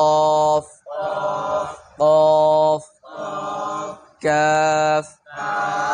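Arabic alphabet recitation drill. A man intones the letter name "qaf" in a long, evenly pitched chanting voice and a group of voices chants it back after him, twice. Near the end he chants "kaf" and the group answers.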